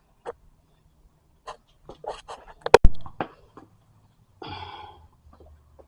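Scattered metal clicks and knocks from handling strut and shock parts, with one loud sharp clank about three seconds in and a short scraping rasp a little later.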